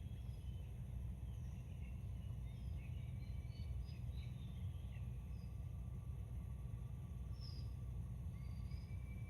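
Small birds chirping and whistling in short scattered calls over a steady low rumble.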